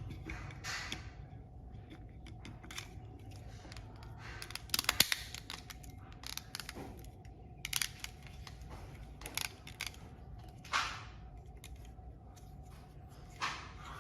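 Scattered small clicks, taps and brief scrapes of plastic mouse parts and small tools being handled at a work surface, with a quick run of clicks about five seconds in.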